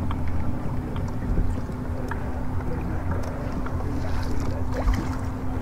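Wind rumbling on the microphone aboard a boat on open water, over a steady low hum, with faint small ticks here and there.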